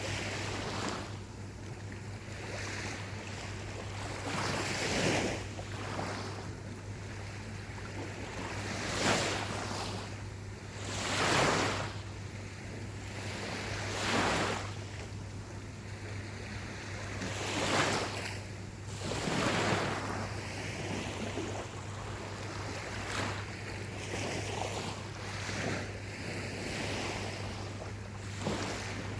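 Gentle ocean waves breaking and washing up on a beach. Each wave swells and fades over a second or two, every few seconds, over a steady hiss of surf.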